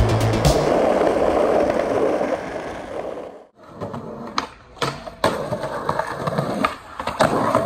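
Skateboard wheels rolling steadily on pavement for about three seconds. Then, after a brief break, a series of sharp clacks of the board on concrete, with rolling in between.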